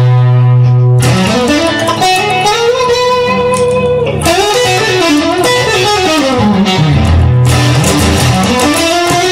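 Instrumental music led by guitar, playing gliding, bending notes over a held low bass note.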